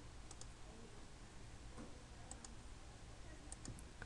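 Faint computer mouse clicks, several in quick pairs, over a low steady hum.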